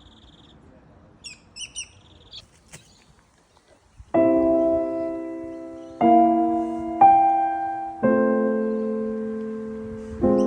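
A few short bird chirps, faint. Then, from about four seconds in, a piano plays slow sustained chords, one every second or two, each note ringing and fading away.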